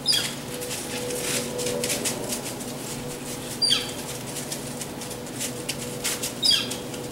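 Three short, high-pitched squeaks that fall in pitch, about three seconds apart, over a patter of light clicks and rustles and a faint steady hum.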